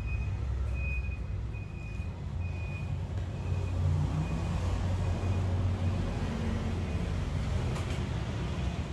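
Vehicle engine rumble with a high electronic warning beep repeating about every 0.7 s, slowly fading away.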